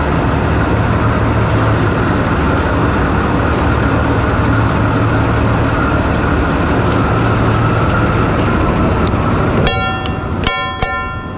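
Steady loud drone of heavy crane machinery running, with a low hum. Near the end, three hammer blows on steel ring out sharply.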